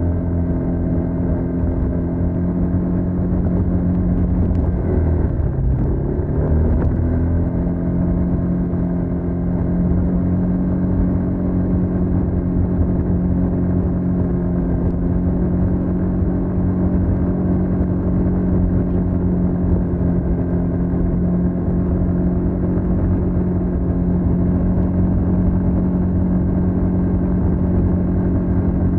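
TVS NTorq 125 scooter's single-cylinder engine through its stock exhaust, running steadily while riding; about five seconds in the engine note drops briefly and climbs back up by about seven seconds, then holds steady.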